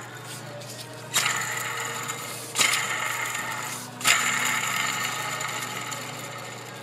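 Worn bearing in a Ford modular V8's serpentine belt pulley, spun by hand with the belt off. It is flicked three times, and each spin starts suddenly as a rough, grinding whirr that slowly dies away as the pulley coasts. The rough bearing is the source of the whine often misdiagnosed as a power steering pump.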